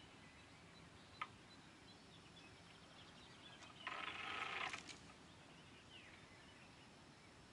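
Spinning reel on a bolognese rod buzzing for about a second midway while a hooked fish is played. Earlier there is a single sharp click, and faint short falling bird chirps come near the end.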